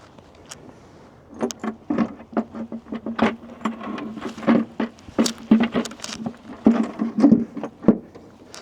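Metal tools and engine parts clinking and knocking during hands-on work on a diesel engine: a run of irregular sharp clicks starting about a second and a half in, over a faint steady hum.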